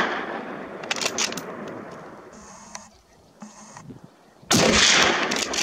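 Two hunting gunshots: the long echo of one shot fades away across the mountainside, then a second shot is fired about four and a half seconds in and also trails off in a long echo.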